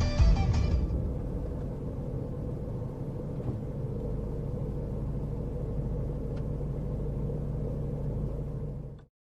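Steady low rumble of a car on the move, engine and road noise as a dashcam records it, cutting off suddenly near the end.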